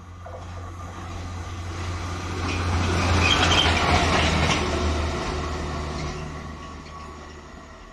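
Harsco rail grinder train passing at speed: a diesel drone and wheel-on-rail noise build as it approaches, peak about three to four seconds in as it goes by close, then fade as it runs away.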